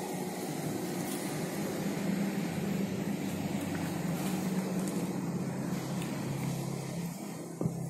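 An engine running steadily, a low even hum over a hiss, with a single sharp click near the end.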